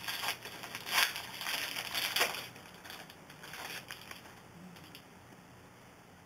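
A basketball trading-card pack wrapper being torn open and crinkled by hand in a series of rough rustles, loudest in the first two and a half seconds, then fading.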